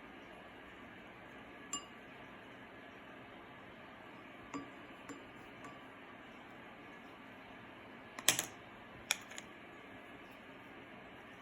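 A few light clicks and clinks of small hard objects being handled, the loudest cluster about eight seconds in, over a steady faint hiss.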